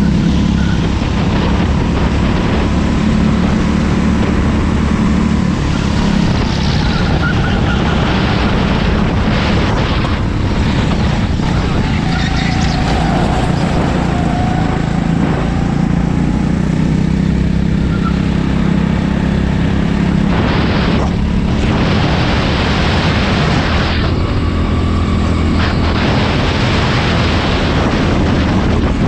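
Go-kart engine running hard on track, heard from onboard, its note rising and falling with the throttle under a steady rush of noise.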